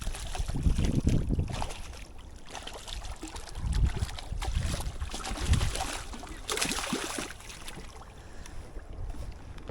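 Wind buffeting the microphone in uneven low rumbles, with a brief louder burst of hissing noise about six and a half seconds in.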